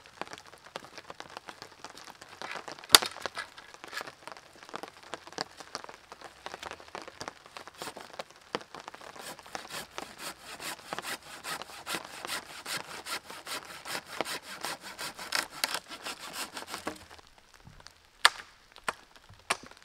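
Dead wood being broken and worked by hand. There is a sharp snap about three seconds in, then a long run of quick rasping strokes on wood that stops a little before the end, and then a few sharp knocks.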